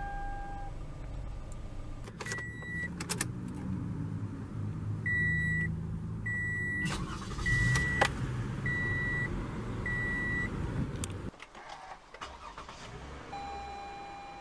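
Toyota Sienna dashboard warning chime: one short high beep, then five more evenly spaced a little over a second apart, over the low, steady sound of the minivan's V6 engine running. Near the end a different Sienna's lower chime tone starts and holds steady.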